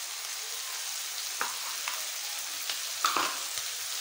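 Mixed vegetables (potato, carrot, peas, tomato) frying in oil in a kadhai on a gas stove, a steady sizzling hiss. A few light clicks sound over it, with a louder knock about three seconds in.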